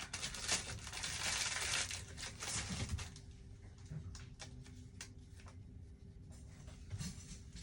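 Crinkly packaging rustling and crackling as it is handled, loudest for the first three seconds, then a few faint clicks and rustles.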